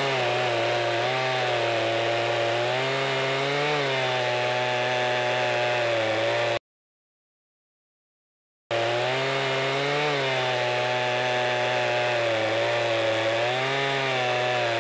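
Gas chainsaw running at full throttle, ripping lengthwise into an elm log, its engine pitch dipping briefly now and then as the bar bites under load. The sound cuts off abruptly for about two seconds partway through, then resumes at the same pitch.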